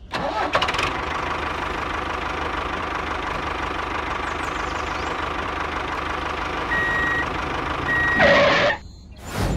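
Tractor engine running steadily. Near the end come two short high beeps about a second apart, then a brief louder sound that falls in pitch before the engine sound cuts out for a moment.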